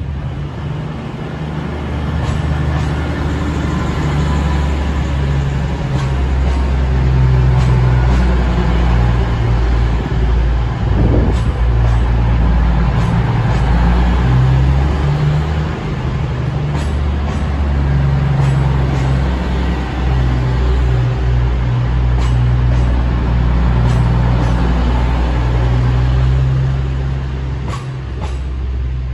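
East Midlands Railway Class 222 Meridian diesel multiple unit passing along the platform, its underfloor diesel engines droning low as the coaches go by, with scattered sharp clicks. The sound eases a little near the end as the last coach clears.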